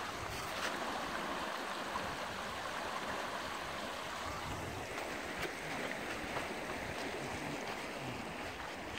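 Shallow creek running over rocks: a steady trickling rush, with a few faint clicks.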